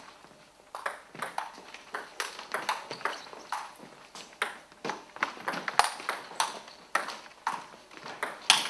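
Table tennis doubles rally: the celluloid ball knocking off bats and table in quick alternation, about three sharp clicks a second. The clicks start about a second in, and the loudest comes near the end.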